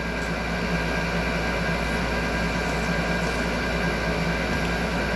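Steady low mechanical hum and rumble with a few faint steady tones above it, with no distinct events.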